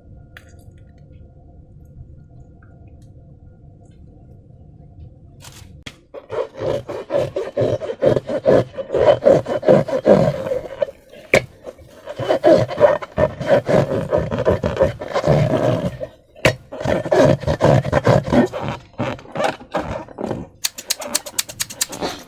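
Slime and rubber balloons being squished and rubbed by hand. Loud, irregular wet squishing and rubbing strokes begin about six seconds in, and a quick run of crackling clicks comes near the end.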